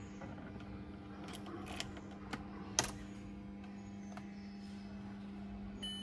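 A few short, sharp clicks as a key goes into a Skoda Rapid's ignition lock and is turned to switch the ignition on, over a steady low hum.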